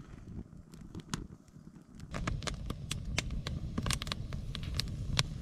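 Campfire crackling: a wood fire burning in a stone pit, with only a few snaps at first, then sharp cracks and pops coming thick and fast from about two seconds in over a low rumble.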